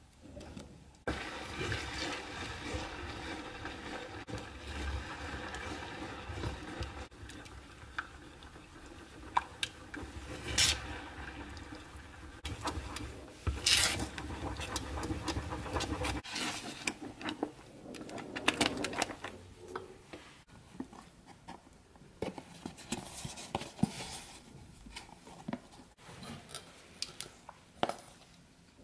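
Wooden spoon stirring an orange juice and cornstarch mixture in a stainless steel pot: liquid sloshing and spoon scraping, with a few sharp knocks of the spoon against the pot. About halfway through it turns quieter, with scattered taps and clicks.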